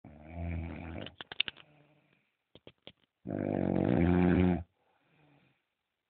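A man snoring in his sleep: a rumbling snore, a quick run of clicks, then a longer, louder snore about three seconds in, followed by a faint breath.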